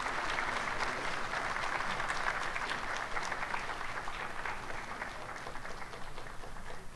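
Audience applauding, a dense patter of hand claps that thins out over the last couple of seconds.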